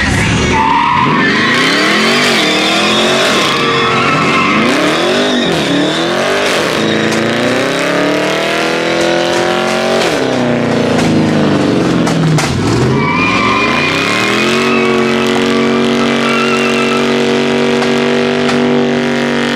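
Dodge Charger Hellcat's supercharged V8 revving up and down repeatedly during a burnout, with tyres squealing, then holding steady at high revs for the last few seconds.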